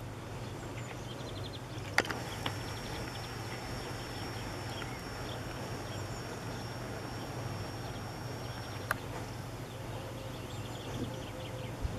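Rural outdoor ambience: a steady low hum with faint scattered bird chirps. Two sharp clicks stand out, about two seconds in and about nine seconds in, with a faint high steady whine between them.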